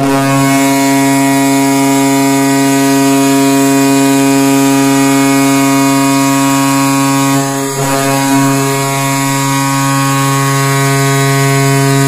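Tampa Bay Lightning's arena goal horn sounding one long, steady, deep blast, with a brief waver about seven and a half seconds in.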